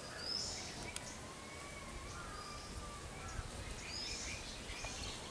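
Quiet outdoor ambience: a steady background hiss with a few faint bird chirps, two short high ones about half a second and about four seconds in.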